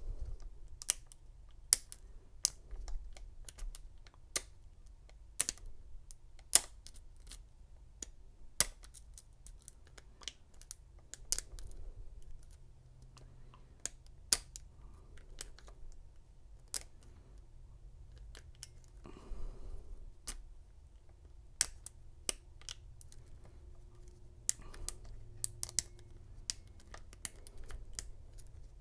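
Sharp, irregularly spaced clicks and ticks of a hook pick working the pin stack inside a Master Lock 930 padlock under tension: single pin picking, with pins setting and spool pins giving slight rotation.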